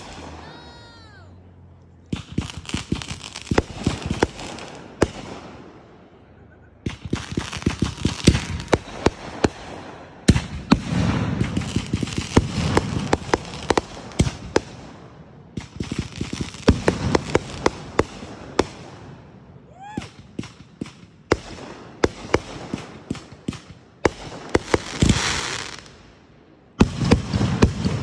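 Fireworks going off in repeated volleys of rapid crackling pops. Each volley lasts two to five seconds, with short gaps between them.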